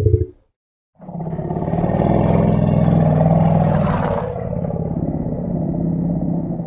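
Elephant calls: the end of a short low call, then after a brief silence a long, low-pitched, pulsing call held for about six seconds.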